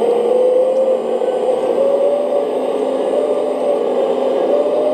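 Hydraulic pump of a Huina Kabolite K970-100S 1/14 RC excavator running with a steady whir, its pitch wavering slightly as the boom and rotating grab are worked.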